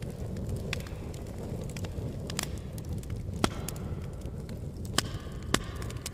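Wood campfire burning with a steady low rumble and irregular sharp crackling pops from the logs, the loudest a few seconds apart near the middle and end.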